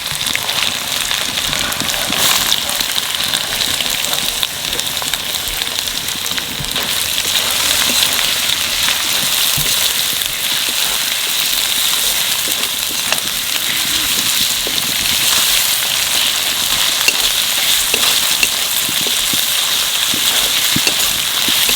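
Onions frying in hot oil in a kadai with garlic paste and whole spices: a steady, dense sizzle, with a few sharp clicks scattered through it.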